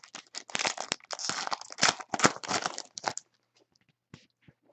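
A foil trading-card pack wrapper being torn open and crinkled in the hands for about three seconds, followed by a few light clicks of cards being handled.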